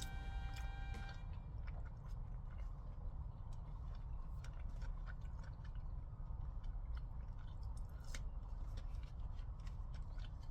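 A man chewing fried fast food close to the microphone, with many small wet mouth clicks and smacks.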